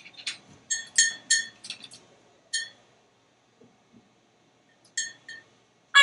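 African grey parrot making short, high chirps: a quick run of about eight in the first two and a half seconds, then a pause, then three more near the end.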